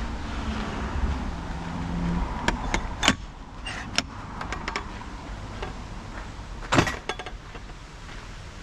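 Car sounds: a low engine rumble over the first few seconds, then a series of sharp clicks and knocks and a loud thump about seven seconds in.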